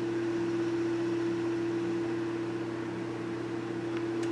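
Steady electrical hum holding one pitch, with a weaker lower hum and a constant even hiss underneath.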